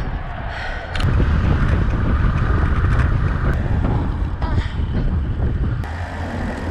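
Wind buffeting an action camera's microphone on a road bike at speed, a loud low rumble that eases a little near the end.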